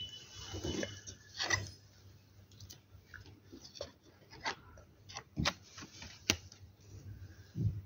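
Pokémon trading cards being handled and shifted one over another in a stack: irregular light clicks and taps with some soft rustling, the sharpest clicks in the second half.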